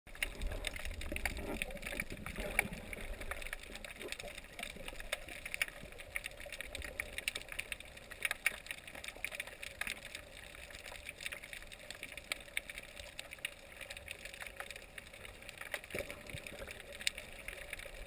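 Underwater ambience picked up by a submerged camera: a steady hiss full of frequent, irregular small clicks and crackles, with a low rumble of water movement in the first two or three seconds.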